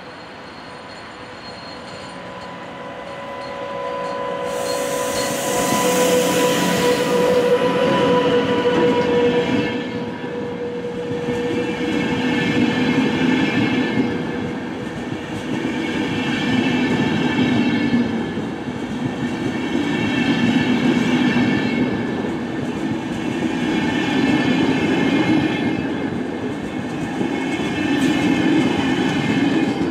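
Freight train passing close by: the locomotive approaches and goes past with a steady tone, then the wagons roll by. The wheels swell in a rhythmic clatter about every four seconds, with a thin squeal from the wheels.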